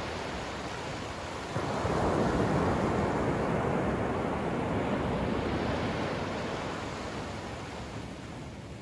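Ocean surf at the shoreline. A wave breaks about one and a half seconds in, and its wash swells and then slowly fades away.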